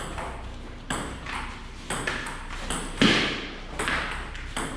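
Table tennis rally: the celluloid ball clicking off paddles and the table in a steady back-and-forth, about a hit every second, the loudest about three seconds in.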